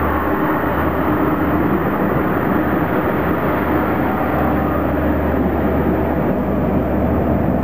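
Adelaide Metro suburban diesel railcar train running steadily past the station platform, a continuous low engine hum under rolling noise.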